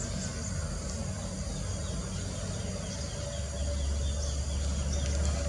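Outdoor ambience: a steady low rumble that grows louder partway through, with a high, steady insect drone and faint small chirps over it.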